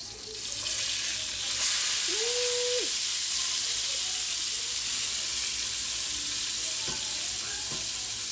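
Salmon frying in hot oil in a pan, a steady sizzle that swells about a second in and holds. A short tone sounds about two seconds in, and there are a couple of faint clicks near the end.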